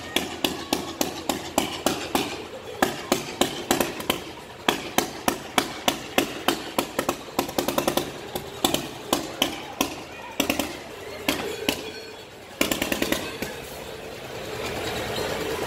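Krampus bells clanging in a fast, uneven string of strikes, about three a second, over crowd voices. About three-quarters in, a louder rush of noise lasts a second or so.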